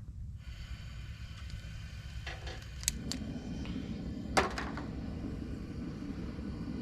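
Gas camp stove burner being lit under a pan: the gas starts hissing, a few sharp clicks follow, then the flame catches with a steady low roar.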